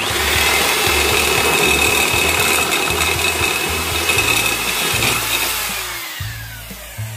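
Electric drill boring a hole through steel angle iron, the bit flooded with cutting oil. It starts suddenly and runs with a steady high whine, then spins down near the end, its whine falling in pitch.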